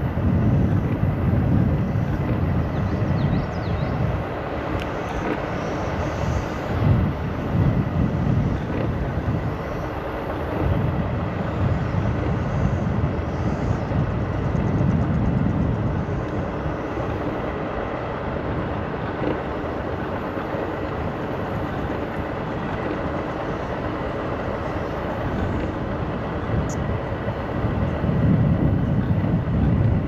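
Segway Ninebot Max G2 electric kick scooter riding along the trail: steady rolling noise from the tyres, with wind rumbling on the microphone in gusts that swell and fade. A faint steady whine runs underneath.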